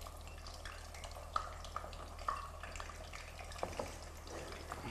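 Faint kitchen handling sounds: scattered light clicks and clinks, a few with a short ring, over a steady low hum.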